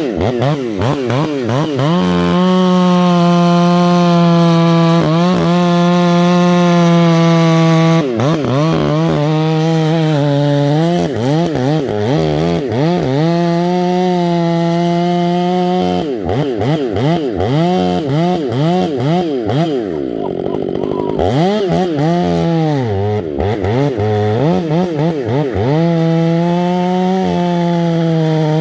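Stihl 500i fuel-injected two-stroke chainsaw running at high revs as its semi-skip, square-ground chain cuts through a tree stump. The engine note holds high and steady at times, then wavers and sags under the load of the cut and climbs back. It drops away most deeply about twenty seconds in before recovering.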